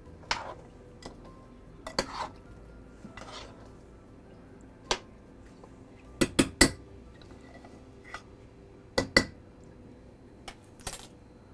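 A metal spoon stirring sliced squash and onions in a pot, with scraping and a string of sharp clinks against the pot. The loudest are three quick knocks about six seconds in, then two more about nine seconds in.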